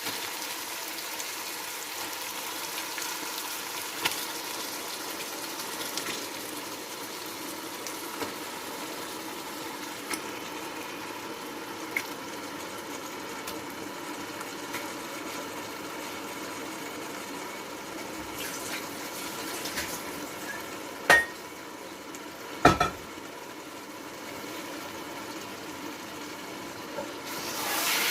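Chicken pieces frying in a hot pan of oil, ghee, onions and ginger-garlic paste, a steady sizzle with small pops every couple of seconds. A utensil knocks twice against the pan about three-quarters of the way through, and the sizzle grows louder near the end.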